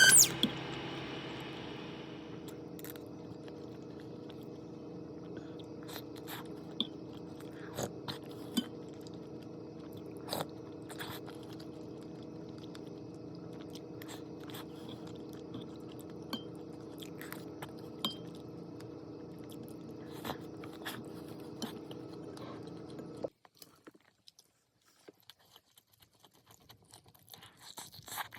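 A person chewing and crunching food, with scattered small clicks. A steady background hum runs under it and cuts off suddenly about three-quarters of the way through.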